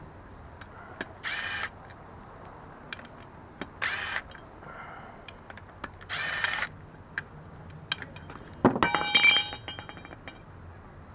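Short bursts of a tool undoing the bolts on a transfer case's front output housing, three times, with scattered small metal clicks. About nine seconds in comes a louder metallic clatter with ringing, like loose steel parts knocking together.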